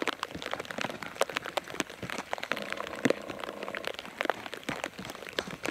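Footsteps crunching on loose gravel as a person walks uphill, a steady irregular crackle of stones shifting underfoot.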